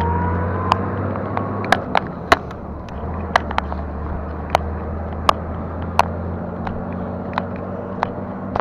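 E-bike ridden along a paved road: steady wind and tyre noise with a low hum, broken by irregular sharp clicks and rattles from the bike and handlebar over bumps.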